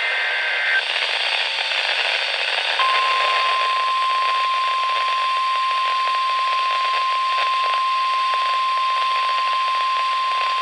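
NOAA Weather Radio broadcast heard over steady radio static: the tail of a SAME digital header burst, a brief two-tone data warble, in the first second, then about three seconds in the 1050 Hz Warning Alarm Tone starts, one steady tone held through the rest. The tone signals that a warning-level alert, here a severe thunderstorm warning, is about to be read.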